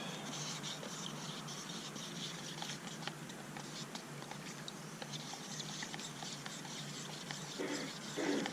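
Wooden mixing stick stirring freshly reduced automotive paint in a mixing cup: soft, irregular scraping and small clicks against the cup.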